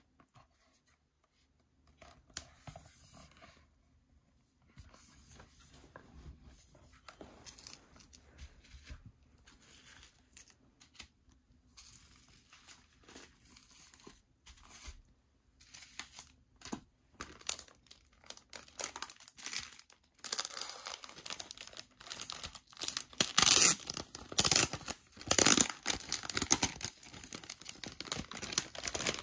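Plastic wrapping crinkling and tearing as it is handled and peeled off a flat package by hand, in scattered crackles at first and louder, denser crackling in the last several seconds.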